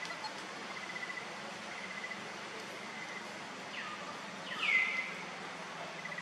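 Outdoor animal calls over a steady hiss: a short, rapid high trill repeating about once a second, and a sharp high chirp that falls in pitch about four to five seconds in, the loudest sound.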